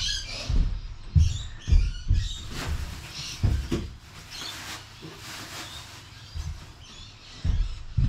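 Footsteps thudding on a boat's carpeted deck, a quick run of heavy steps that dies away for a few seconds and picks up again near the end, with high bird chirps behind.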